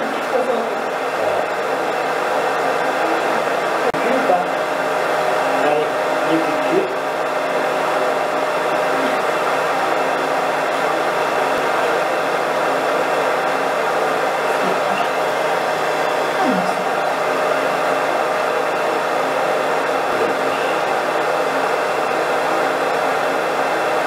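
Hair dryer running steadily.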